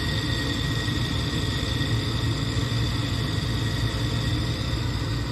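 Gas furnace's blower motor and draft inducer motor running together, a steady rumbling hum with a constant high whine. The blower motor, freed by hand after it had seized, is not running up to speed, and the technician judges it needs replacing.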